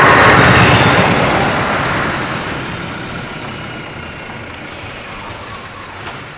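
Scania R500 tractor unit's V8 diesel engine and tyres as the truck passes close and drives off. The sound is loudest at the start and fades steadily as the truck moves away.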